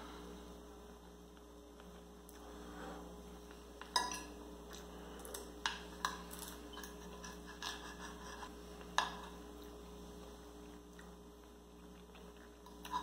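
Metal fork clinking and scraping against a plate as pieces of baked omelette are cut off, a handful of sharp clinks with the loudest about four seconds in and again about nine seconds in. A steady electrical hum runs underneath.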